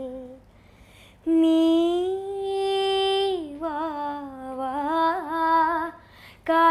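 A girl singing an old Malayalam song unaccompanied. After a short pause she holds one long note from about a second in, then sings wavering, ornamented phrases, with a quick breath near the end.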